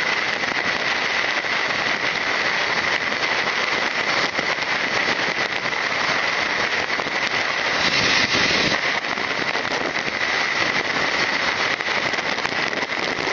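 Wind and road noise rushing over the camera's microphone on a moving motorcycle, with constant crackling and a louder gust about eight seconds in.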